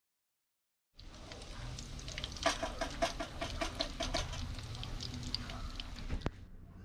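Breaded mahi mahi katsu deep-frying in a pan of hot oil, sizzling with many quick pops and crackles, starting about a second in. A run of quick, repeated pitched calls sounds over the sizzle in the middle.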